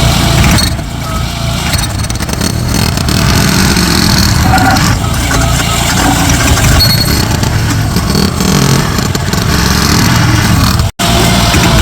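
Heavy construction machinery engine running loudly and steadily, with a brief full dropout near the end.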